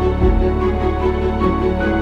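Background music: sustained melodic tones over a steady low bass.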